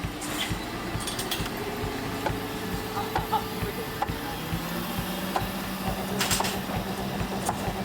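An engine running steadily with a low hum, with a few sharp knocks about half a second, a second and a half, and six seconds in.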